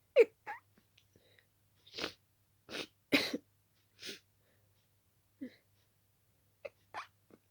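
A person sneezing again and again in quick succession, a string of short, sharp sneezes with brief pauses between them: an itchy-nosed sneezing fit that the sneezer puts down to a dust allergy.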